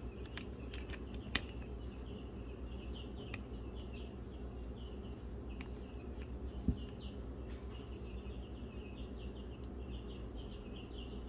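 Rapid, repeated high chirping over a low steady hum. A sharp click comes about a second and a half in and a low knock just after the middle, as a chainsaw crankshaft is handled.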